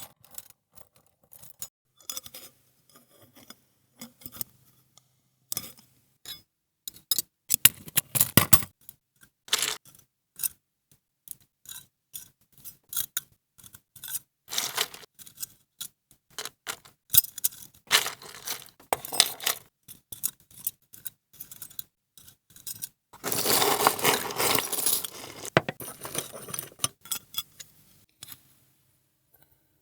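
Bangles on a woman's wrist clinking and jangling in irregular shakes. The longest and loudest shake is a continuous jangle of about two seconds, roughly three quarters of the way through.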